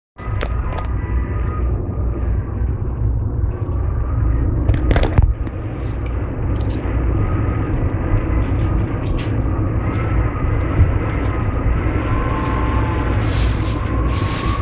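Strong gusting wind rumbling and buffeting, with a faint wavering whistle above it. Short high bird chirps come in near the end.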